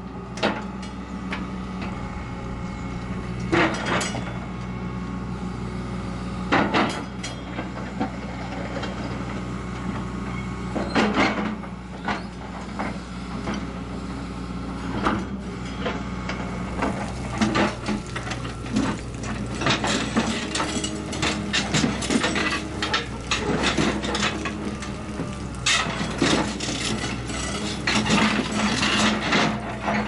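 Tracked excavator's diesel engine running steadily while its bucket crushes and rips apart a bulldozer's steel body, with repeated loud metallic crunches and bangs that come more often in the second half.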